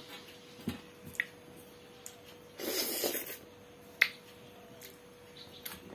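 Fingers scraping leftover curry from a small stainless-steel bowl, with light clicks of fingers and nails on the metal. A short noisy rustle comes near three seconds in and a sharp click about a second later, over a faint steady hum.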